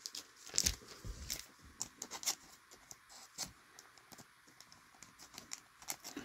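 A refractor trading card being handled and slid into a soft clear plastic sleeve: a run of small clicks, scrapes and plastic rustles, busiest in the first couple of seconds and sparser after.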